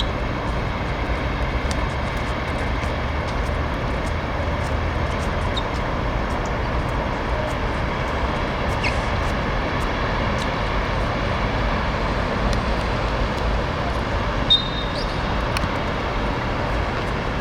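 Steady rumble of outdoor background noise, wind and traffic, with a brief high whistle blip about fourteen and a half seconds in.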